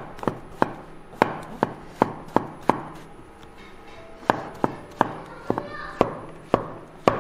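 Chinese cleaver slicing king oyster mushrooms on a wooden cutting board: sharp chops about three a second, in two runs with a pause of about a second and a half partway through.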